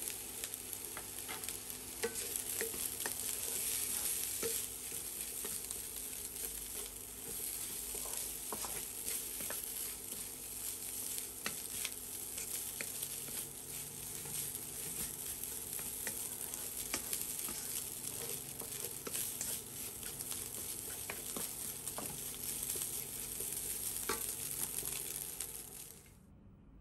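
Garlic fried rice sizzling in a nonstick wok as a wooden spatula stirs and tosses it, with many small taps and scrapes over the steady frying hiss. The frying stops suddenly near the end.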